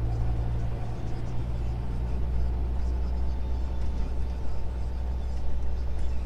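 Heavy truck's diesel engine and tyre noise heard from inside the cab while driving, a steady low drone; the engine note drops lower about a second in.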